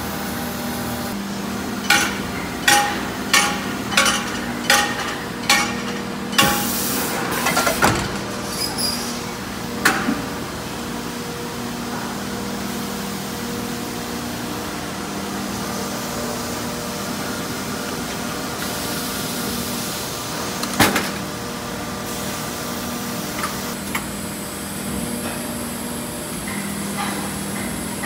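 Plastic injection moulding machine running with a steady hum, a run of about eight sharp metallic knocks from about two to eight seconds in, with a short hiss near the end of the run. Single sharp knocks follow near ten seconds and near twenty-one seconds.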